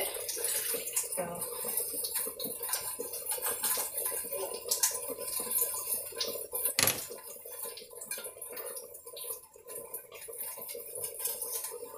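Pots and utensils clinking and knocking at a kitchen sink while a pan is washed and wiped by hand, with one sharp, louder knock about seven seconds in.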